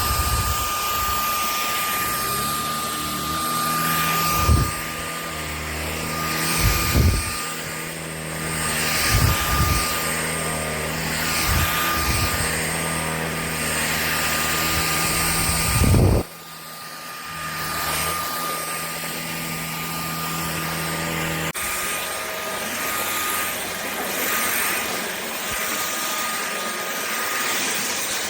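Shark Clean & Empty cordless stick vacuum running with a steady high whine, with several loud low thumps as it is worked, and a drop in level about 16 seconds in.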